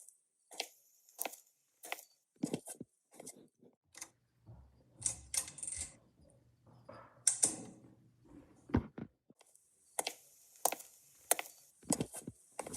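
An irregular series of short, sharp clicks and knocks, roughly one every half second to second, some with a bright high edge.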